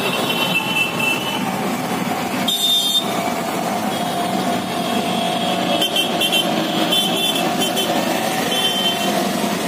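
Road traffic: motor vehicles running steadily, with short high horn toots in quick bursts during the second half.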